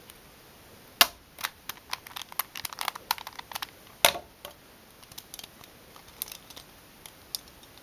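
Plastic Rubik's-type cube and pyraminx being handled and set down on a wooden table: a sharp knock about a second in, a quick run of plastic clicks and clacks, another sharp knock about four seconds in, then scattered lighter clicks.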